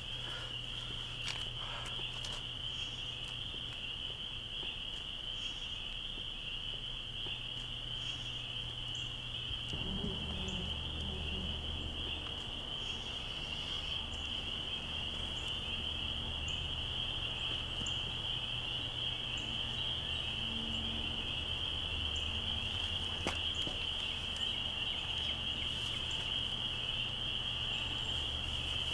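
A steady high-pitched chorus of calling insects, like crickets, with a low steady hum underneath that grows louder about ten seconds in.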